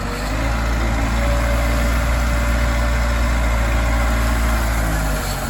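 Backhoe loader's diesel engine revving up under load as its front bucket is driven into a stone pile. It holds steady at high revs, then drops back about five seconds in.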